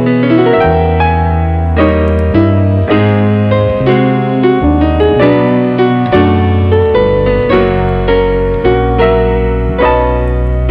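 Background piano music: held chords over a bass line, changing about once a second.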